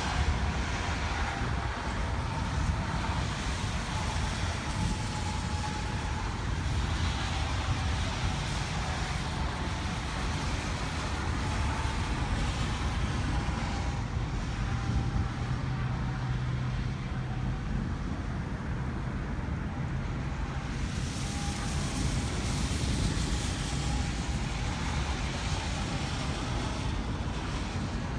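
Steady outdoor night-storm ambience: a continuous wash of noise with a low rumble underneath, and no distinct claps or cracks.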